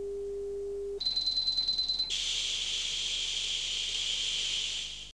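Steady low test tone under a television test card, which cuts off about a second in to a high-pitched whine with crackle. About two seconds in this gives way to the even hiss of TV static (snow), fading out near the end.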